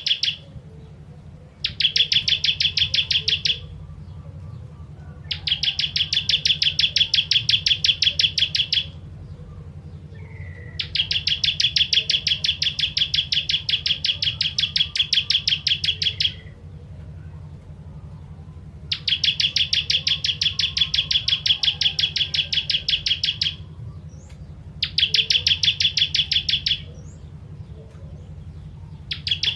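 Ciblek kristal (bar-winged prinia) singing its rapid, even trill of sharp, high notes in repeated bursts of about two to five seconds, six times, with a steady low hum underneath.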